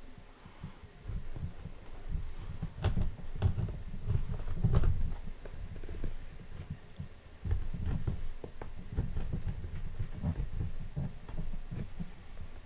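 Handling of a cardboard product box being opened: irregular low thuds and rubbing, with a few sharp clicks.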